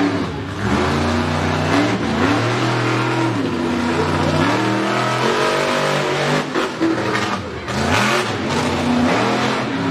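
Monster truck engine revving repeatedly, its pitch climbing and dropping several times as the truck drives across the dirt.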